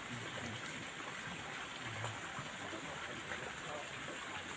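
Steady, even outdoor background hiss, with faint low murmurs like distant voices near the start and about two seconds in.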